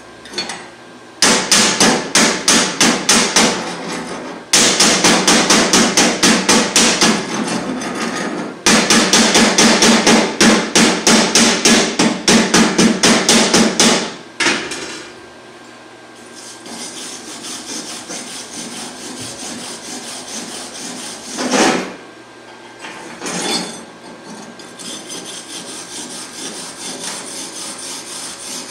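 Steel chipping hammer knocking slag off a fresh stick-weld bead on steel plate, in three quick runs of sharp taps, about seven a second. Then a wire brush scrubbing the bead, a steady scratching with a couple of louder strokes.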